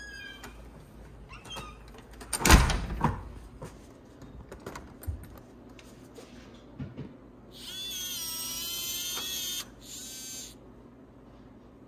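A door bumps shut with a thump, and about five seconds later the SimpliSafe smart lock's motor whirs for about two seconds as it drives the deadbolt, followed by a shorter, weaker whir.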